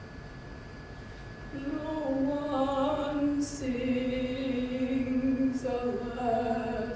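A woman singing a slow chant of a few long-held notes, coming in about a second and a half in and stepping lower in pitch. Short hissed consonants fall between the notes.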